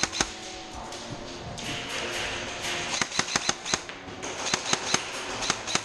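Airsoft guns firing, single snaps and short strings of rapid shots at about five a second.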